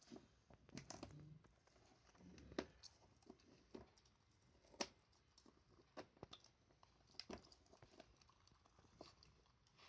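A dog gnawing on a chew, faint and quiet: irregular small clicks and crunches of teeth on the chew, about one a second.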